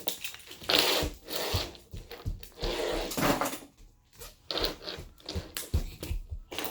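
Toy train pieces being handled and packed into a storage tray: irregular rubbing and scraping with a few soft knocks.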